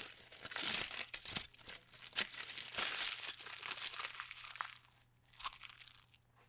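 Aluminium foil being crumpled and crinkled: a dense run of sharp, bright crackles that thins out about five seconds in, with one last short crinkle just after.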